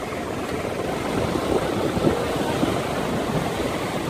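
Surf breaking on the shore with wind on the microphone, and a tractor engine running underneath as it hauls a fishing boat up the beach by rope.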